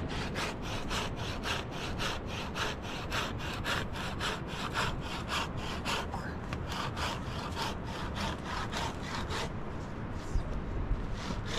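Hand saw cutting through a wooden log, in steady back-and-forth strokes of about three a second.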